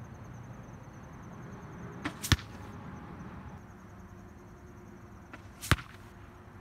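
Two arrows striking a bag archery target, each a sharp hit, the second about three and a half seconds after the first and the louder. A fainter crack comes a fraction of a second before each hit: the bow's shot heard from downrange.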